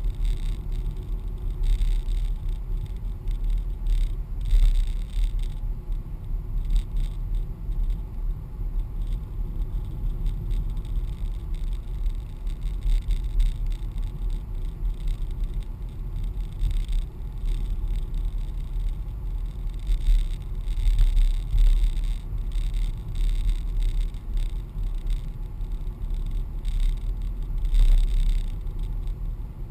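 Car driving, heard from inside the cabin: a steady low rumble of road and engine noise, with frequent short rattles and scrapes.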